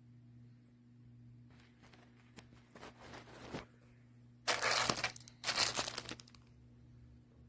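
Crinkling and rustling as plastic parts or packaging are handled, with two louder bursts of crinkling a little past halfway, over a low steady electrical hum.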